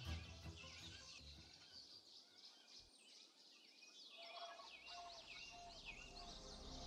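Faint ambience of birds chirping: many short, quick calls that come thickest in the last few seconds, while a low background sound dies away in the first two seconds.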